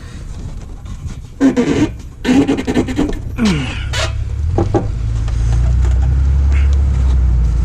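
Scattered clicks and brief pitched sounds during the first few seconds. Then, from about four and a half seconds in, a car engine settles into a steady low idle.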